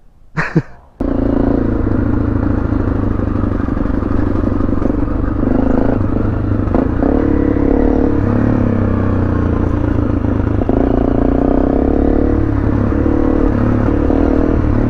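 Honda CRF250L's single-cylinder four-stroke engine running steadily under way, its pitch shifting a little with the throttle, with wind rush and some clatter from the bike. It cuts in suddenly about a second in, after a brief word.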